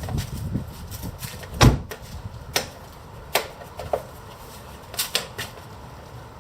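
A scatter of sharp metallic clicks and knocks from hand tools at work on a car wheel, with one heavier knock about a second and a half in and a quick group of clicks near the end.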